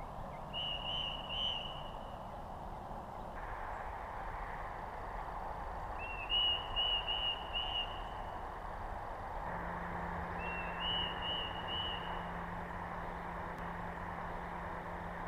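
A bird calling in short high chirps, three or four at a time, three times over, against a steady outdoor background noise.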